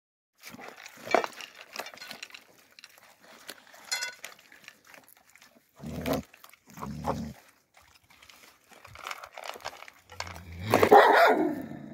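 Young Alabai (Central Asian Shepherd) puppies eating dry food from metal bowls on snow: scattered crunching and clicking, with a couple of duller knocks. Near the end comes a louder dog vocal sound lasting about a second.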